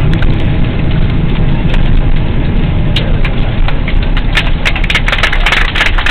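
Boeing 777-200ER landing roll-out heard from the cabin: a loud, steady low rumble of the engines and the wheels on the runway. From about halfway, rapid crackling clicks and rattling join it and grow denser.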